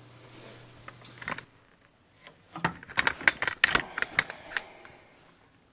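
A cluster of rapid light clicks and knocks, handling noise as the camera is moved, lasting about two seconds in the latter half. A low steady hum cuts off about a second and a half in.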